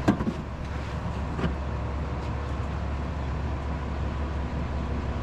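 Concrete mixer truck's engine running steadily with a low rumble, with two light knocks near the start and about a second and a half in.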